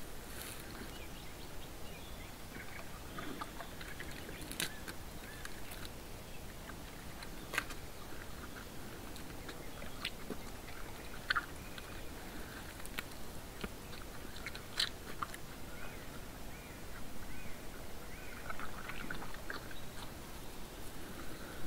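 Brown bear feeding at close range, chewing and crunching its food with irregular sharp cracks and clicks.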